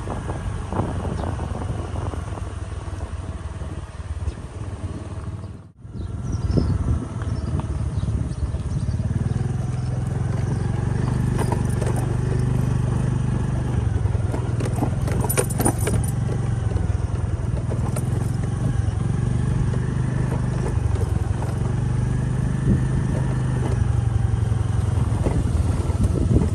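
Motorcycle engine running while being ridden, its pitch rising and falling with the throttle. It rattles and clicks over a rough dirt track, and the sound breaks off briefly about six seconds in.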